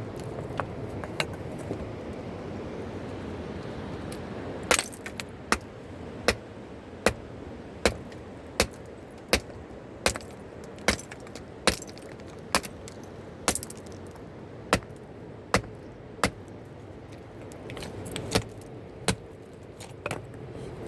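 A series of sharp knocks struck at a steady pace, about one every three-quarters of a second, starting about five seconds in and thinning out near the end, over a steady rushing background noise.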